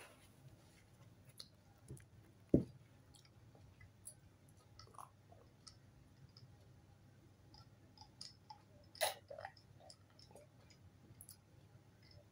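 A person drinking from a tall glass in long draughts, with faint swallowing and small mouth clicks. There is a single low knock about two and a half seconds in and a sharper click about nine seconds in.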